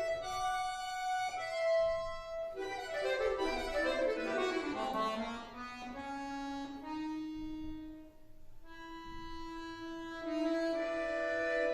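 Solo bayan (Russian button accordion) playing a slow folk-song arrangement. Held chords give way to a fast run of notes sweeping downward about three seconds in. The run settles into slow sustained notes, which dip briefly before fuller chords return near the end.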